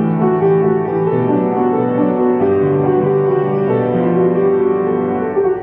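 Upright piano being played: a slow melody of held notes over lower bass notes.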